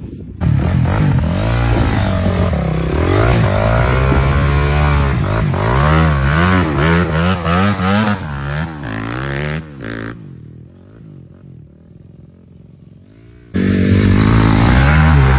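Dirt bike engine revving up and down again and again as the bike is ridden through mud. About ten seconds in the engine sound drops to a faint level for a few seconds, then comes back loud near the end.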